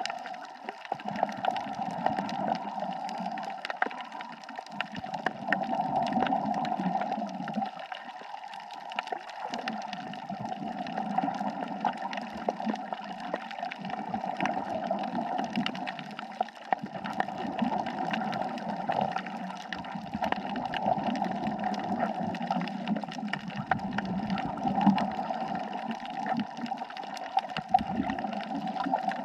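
Water gurgling and bubbling heard underwater, swelling and easing every few seconds, with scattered faint clicks.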